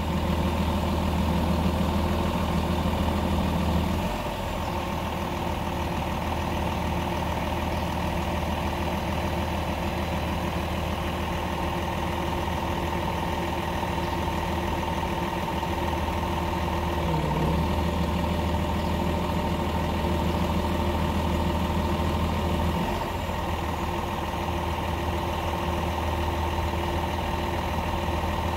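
Diesel engine of a truck-mounted hydraulic crane running steadily as it holds and swings a suspended boat, with a steady high whine along with it. The engine note rises and grows louder twice, for the first few seconds and again for several seconds in the middle, as the crane works the load.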